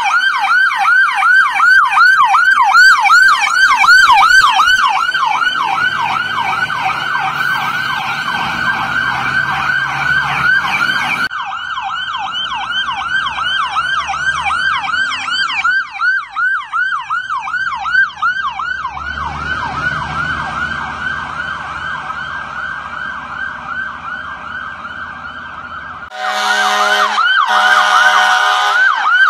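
Fire engine sirens on a fast yelp, about three rising sweeps a second, with diesel engine rumble as the trucks pass. Near the end, two long blasts of a horn.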